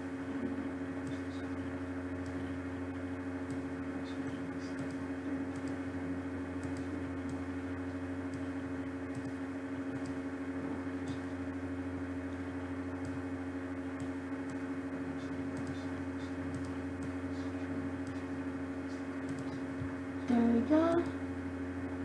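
Steady electrical hum with several constant tones, the background noise of a recording setup, with faint clicks scattered through. A brief murmur of voice comes near the end.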